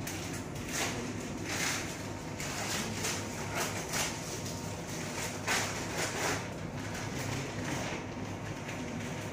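Steady equipment hum of the procedure room, with short scattered rustles and scrapes from drapes, packaging and instruments being handled.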